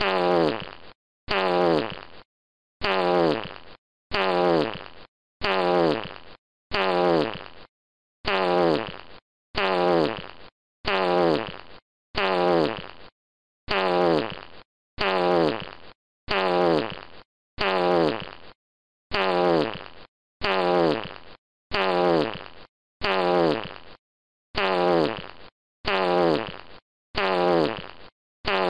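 Fart sound effect: one fart about a second long, falling in pitch, looped over and over with short silent gaps, about twenty times.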